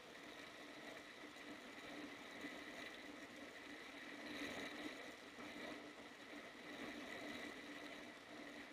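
Faint, steady night ambience: an even hiss with constant low and high tones that do not change.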